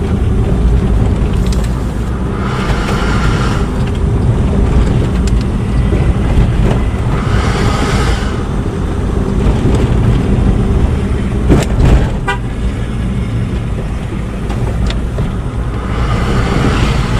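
Car driving along a rough road, heard from inside the cabin: steady engine and road rumble. A hiss swells up three times, and there are two sharp knocks about twelve seconds in.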